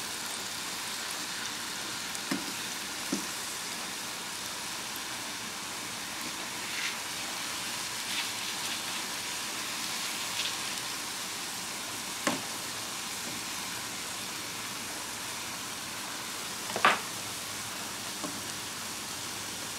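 Onion slices and mushrooms sizzling steadily on a Blackstone E-Series electric griddle at 365°F. Several short clicks and taps of a spatula and tongs on the griddle plate come as the onions are flipped, the loudest late on.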